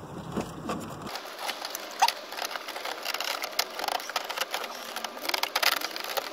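Plastic clicking, scraping and rattling as the instrument cluster is worked loose and pulled out of a VW Golf Mk4 dashboard, with one sharp click about two seconds in.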